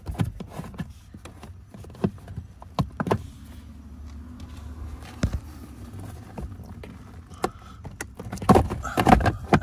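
Scattered clicks and knocks of hard plastic as an under-dash fuse box is unclipped and worked down out of its mount, the knocks coming more often near the end.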